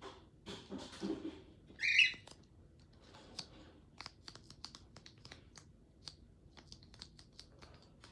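Computer keyboard typing: irregular rapid key clicks. A short high-pitched chirp about two seconds in is the loudest sound, with a brief rustle just before it.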